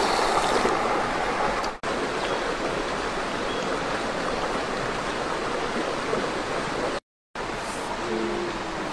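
Steady rush of a rocky forest stream flowing, an even wash of water noise that drops out briefly about seven seconds in.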